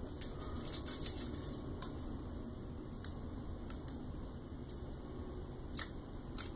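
Light scratching and a handful of sharp little clicks as protective backing is peeled and picked off a small laser-cut acrylic printer part by hand, over a steady background hiss.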